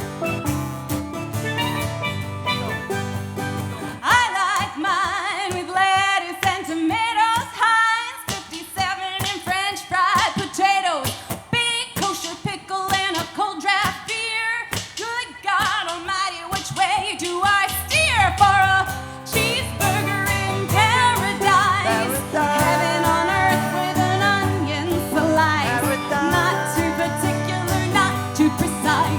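Music: a country-pop song with a steady bass and beat, its lead melody wavering and bending through the middle, with no words heard.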